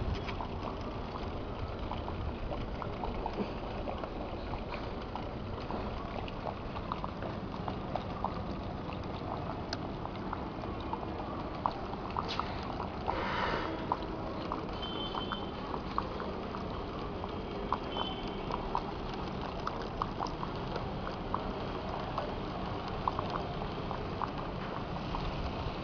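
Water trickling and splashing steadily through an aquaponics system's pipes and tanks, with many small drips and splashes scattered through it.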